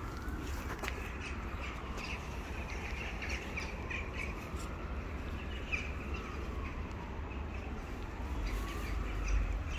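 Birds calling outdoors over a steady low rumble of street noise.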